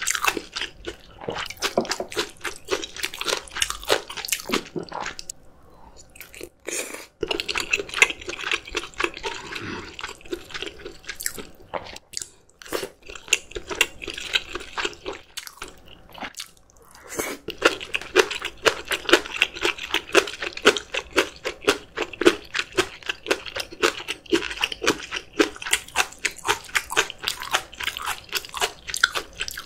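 Close-miked chewing with wet mouth sounds and crunching of spicy steamed monkfish and bean sprouts, a fast run of bites broken by a few short pauses.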